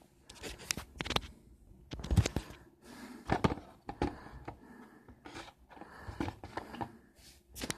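A toy's card-and-plastic blister package being handled and turned over: irregular clicks, knocks and scrapes of plastic and card, about half a dozen sharp knocks spread through.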